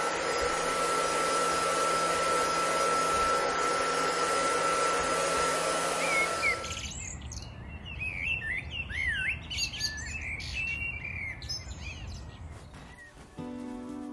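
Hand-held hair dryer blowing, a loud steady rush of air with a thin high whine, cutting off abruptly about seven seconds in. Then birds chirping outdoors, short scattered calls.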